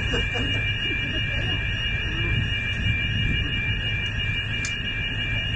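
A steady high-pitched alarm tone sounds without a break, over a low rumble.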